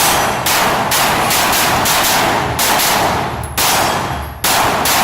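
Pistol fired in quick strings during a practical-shooting stage: about ten sharp shots, roughly two to three a second, with a short pause a little before the fourth second before firing resumes.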